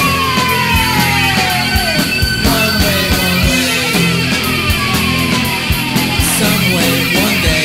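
1980s punk/metal band recording with no vocals: a distorted lead guitar slides down in pitch in long glides, three times, over bass and steady drums.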